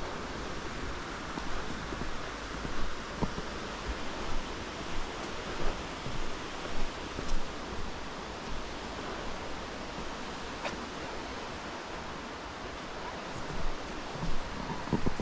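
Footsteps of a hiker on a forest trail, about two a second, over a steady rushing hiss. The steps pause for a few seconds in the middle and resume near the end.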